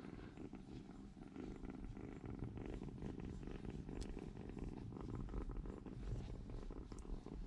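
Kitten purring steadily, close up, as it is stroked by hand, with a light tick about four seconds in and another near the end.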